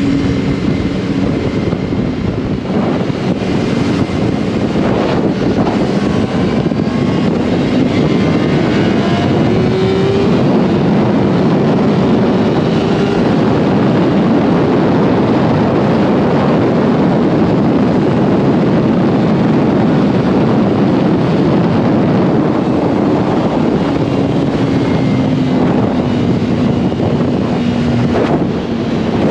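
Yamaha R1 sportbike's inline-four engine running at speed, its pitch rising and falling with the throttle, under heavy wind noise on the microphone.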